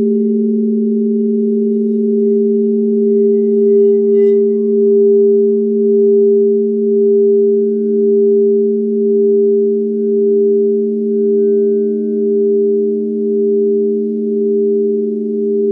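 Alchemy crystal singing bowls ringing together in a sustained chord of steady tones, their rims played with a wand. From about five seconds in the sound swells and fades about once a second as the tones beat against each other. A light tick comes about four seconds in, and another tone joins at about seven seconds.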